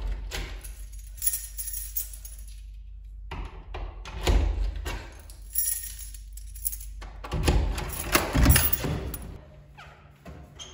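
A bunch of metal keys jangling in several short bursts as they are fumbled at a door lock.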